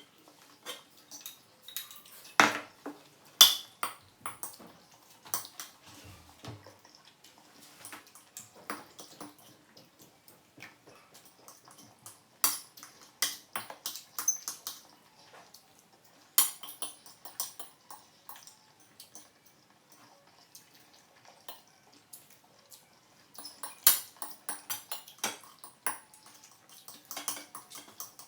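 Utensils clinking and scraping against dishes in irregular, scattered knocks, a few of them sharper and louder than the rest.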